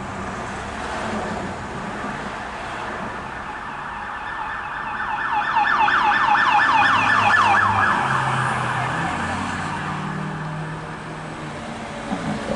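Emergency vehicle siren sounding, changing to a fast repeated yelp a few seconds in as it grows louder, then fading away, with a low traffic rumble underneath.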